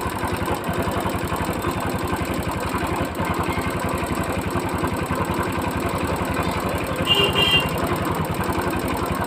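Hero Splendor Plus's single-cylinder four-stroke engine idling with a fast metallic ticking that jingles like bangles. The mechanic takes the tick for the piston striking a valve, not a worn piston pin or tappet.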